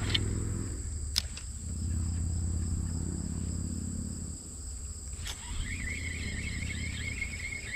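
Outdoor ambience with a steady high insect drone, over a low rumble that fades about four seconds in. Two sharp clicks are heard, and near the end a wavering high chirping begins.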